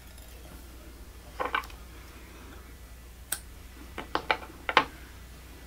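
Small sharp clicks and taps of fly-tying tools being handled at the vise: a couple about a second and a half in, a single sharp click past the middle, and a quick run of four or so near the end.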